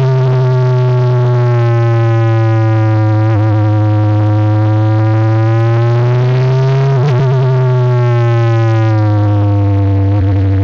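A Tatuus Formula 4 car's Abarth turbocharged four-cylinder engine, heard onboard, pulls steadily in third gear at moderate revs through slow corners. Its note holds level, falls away after about seven seconds, and starts to pick up again near the end.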